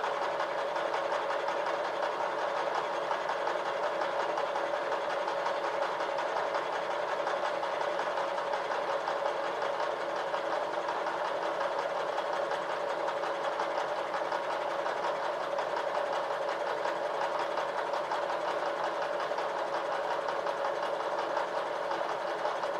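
Vertical milling machine running steadily, an end mill taking a light skim cut across a part under power feed, with a constant tone over a fine rapid chatter of the cutter.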